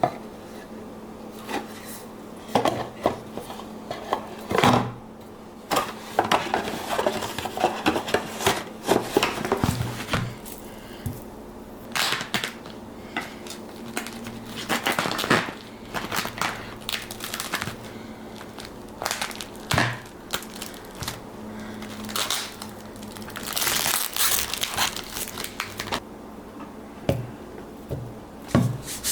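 Kitchen handling sounds: rustling and crinkling with scattered clicks and clinks of dishes and utensils, over a faint steady hum. A louder rustle comes near the end.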